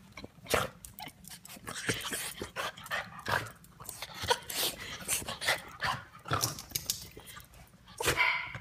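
A schnoodle, a small curly-coated dog, making short, irregular soft barks and whimpers.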